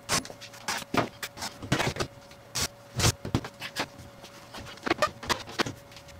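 Scattered knocks and clicks of hands handling an LG front-load washer's front panel and door, over a faint steady hum.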